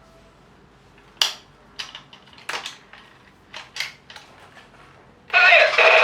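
A handful of sharp plastic clicks and knocks as a battery-powered toy machine gun is handled, then, about five seconds in, the toy gun's loud electronic firing sound effect starts up.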